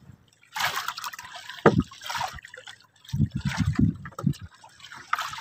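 Sea water splashing and trickling as a gill net is hauled over the side of a small wooden outrigger boat, with one sharp knock about one and a half seconds in. Wind gusts on the microphone in the second half.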